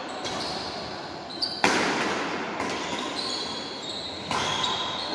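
Badminton rackets striking a shuttlecock during a doubles rally. There are several sharp hits: the loudest comes about a second and a half in and another a little past four seconds. Each hit echoes in the large hall, with short high shoe squeaks on the court floor in between.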